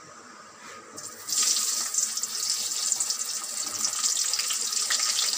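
Raw mango pieces tipped into hot mustard oil in a steel kadai: the oil starts sizzling suddenly about a second in and keeps up a steady, loud hiss with small crackles.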